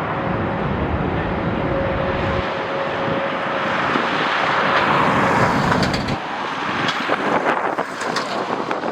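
Jet airliner engines running, a broad rush with a steady tone that swells about four to five seconds in. From about six seconds in, strong wind gusts crackle on the microphone.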